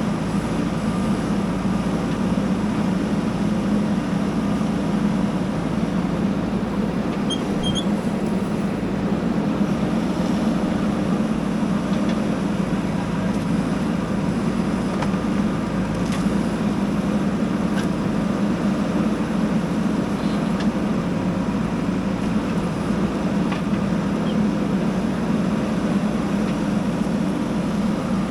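Diesel engine of a JCB backhoe loader running steadily as it works.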